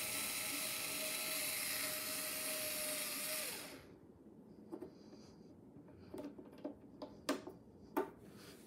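Cordless screwdriver whirring steadily as it backs out a long chassis screw from the amp cabinet, winding down and stopping about three and a half seconds in. A few light clicks and knocks follow.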